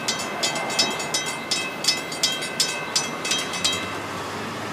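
Freight cars rolling past, their wheels clicking rapidly and irregularly over the rail joints, about three clicks a second, with a steady high ringing from the wheels. The clicking dies away near the end as the last car passes.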